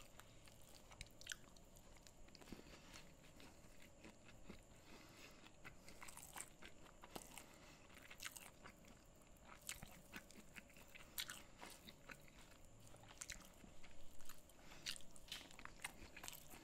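Faint close-up eating sounds: chewing with scattered short, sharp crunches and clicks, as fingers mix rice and curry with crisp fried cashews on a banana leaf.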